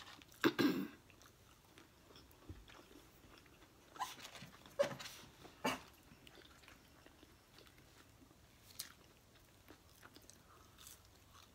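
Close-miked eating sounds: chewing and lip smacks on French fries, coming in a few short bursts, one about half a second in and several between four and six seconds in.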